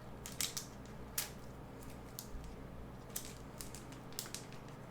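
Plastic snack wrapper being handled and worked open: faint, irregular crackles and rustles, a little louder about a second in and again about three seconds in.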